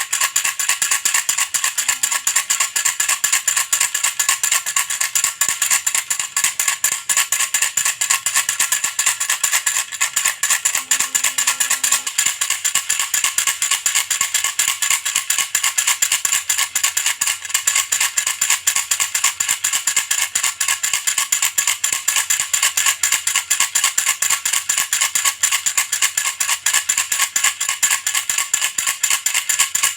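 Baby rattle shaken steadily and quickly, a continuous bright rattling with several shakes a second and no pauses.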